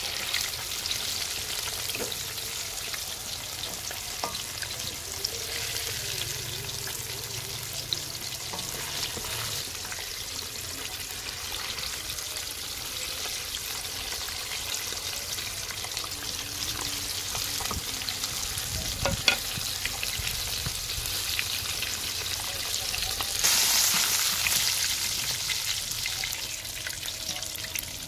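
Gram-flour-battered fish pieces deep-frying in hot oil in a steel wok: a steady crackling sizzle as a wooden spatula turns them. A single knock comes about two-thirds of the way in, and the sizzle swells louder for a couple of seconds near the end.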